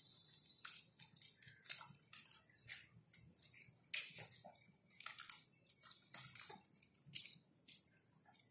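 Puppies suckling at a nursing mother dog: irregular smacking and sucking clicks.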